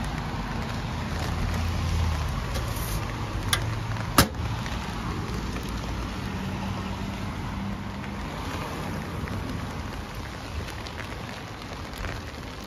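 Heavy rain falling steadily, with a low rumble underneath. About four seconds in there is a sharp knock as a parcel-locker compartment door is shut.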